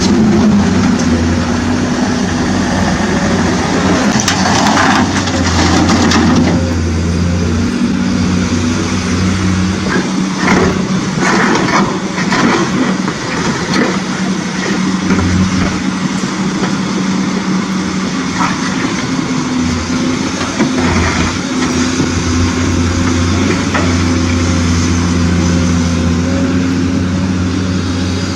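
Radio-controlled construction models at work hauling stone: a steady engine-like hum with irregular bursts of stones rattling and scraping.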